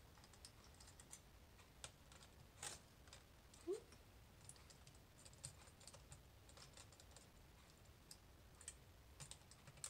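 Faint, scattered light clicks and ticks of a small Phillips screwdriver working the captive screws that hold a laptop's cooling fan and heatsink, over near silence. There is a brief squeak a little under four seconds in.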